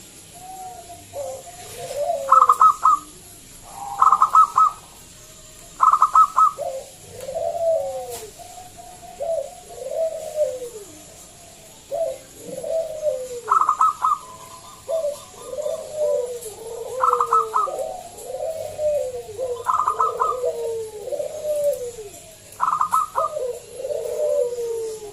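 Zebra dove (perkutut) singing: bursts of rapid, clipped high notes, each followed by arched, falling coos, repeated every few seconds in a loud, continuous run. It is the kind of song used as a lure to call other zebra doves into singing.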